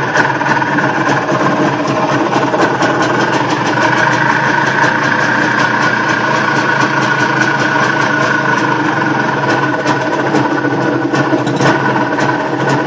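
IZh Planeta 5 motorcycle's single-cylinder two-stroke engine idling steadily, with a fast, regular ticking running through it.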